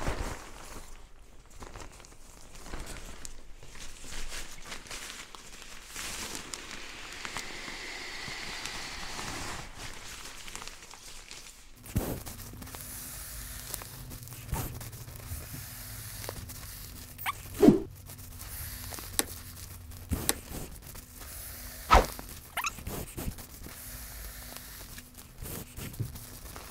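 Nylon pump sack rustling and crinkling as it is filled with air, then rolled and pressed down to push the air into a Therm-a-Rest NeoAir XTherm Max air pad through its valve. A few dull thumps come about two-thirds of the way in.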